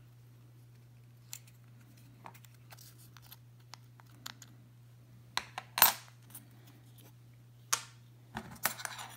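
Small metal knife parts clicking and clinking as they are handled and set down on a wooden tabletop: faint ticks, a few sharp clicks about halfway through, and a quick cluster near the end. A low steady hum sits underneath.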